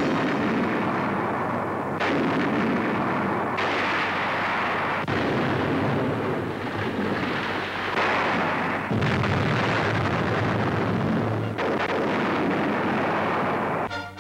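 US Army M1 240 mm howitzers firing in test: a series of heavy blasts about every one to three seconds, each one's rumble running into the next.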